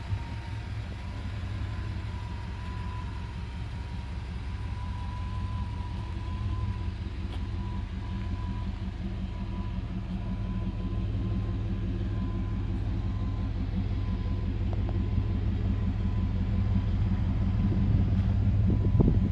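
1993 GMC Sierra K1500 pickup's engine idling, a steady, even low rumble. It grows louder near the end as the rear of the truck, where the exhaust exits, comes close.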